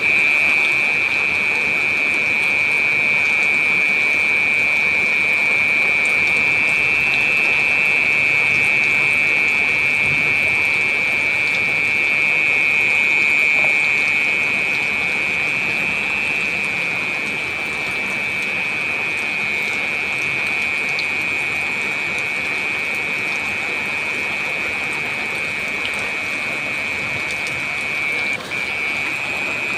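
Heavy rain falling steadily, with a constant high-pitched ringing tone running through the downpour.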